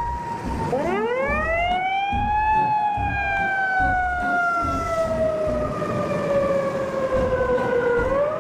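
Fire truck siren wailing. It climbs steeply in pitch for about two seconds, then slowly sinks and starts climbing again near the end, with a low engine rumble beneath.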